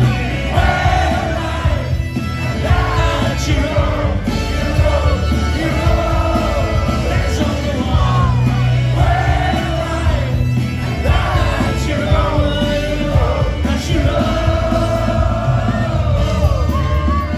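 A folk-rock band playing live, loud, with a sung lead vocal over guitars, bass and drums, heard from within the crowd on a phone.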